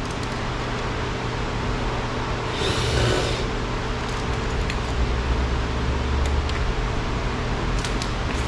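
Steady mechanical hum with an even background noise. There is a brief hiss about three seconds in, a low rumble a little later, and a few faint clicks near the end.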